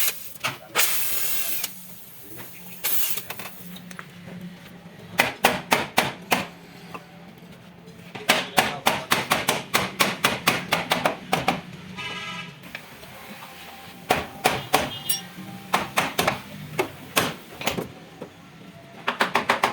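Hammer blows on metal, coming in bursts of rapid strikes at about four a second, over a steady low hum.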